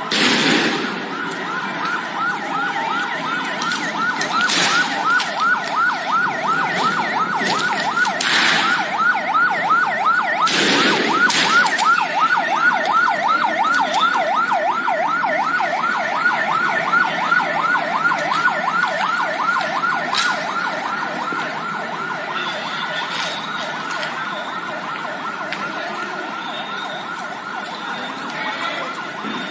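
Police vehicle siren sounding in a fast yelp, about four sweeps a second. Several sharp loud bangs go off over it, four or five in the first dozen seconds and one more around twenty seconds in.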